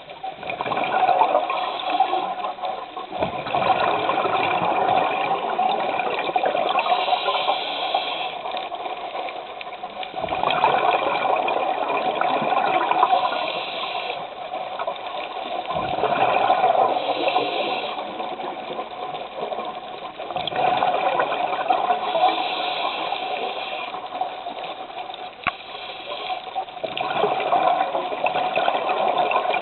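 A scuba diver breathing through a regulator underwater: gurgling bursts of exhaled bubbles swell and fade in a regular cycle about every five to six seconds, with short quieter gaps between breaths.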